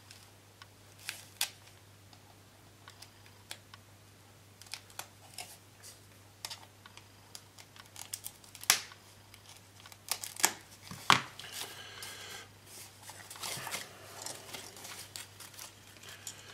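Plastic model kit sprues being handled: scattered light clicks and taps of plastic, a few sharper ones about nine and eleven seconds in, with stretches of crinkling packaging.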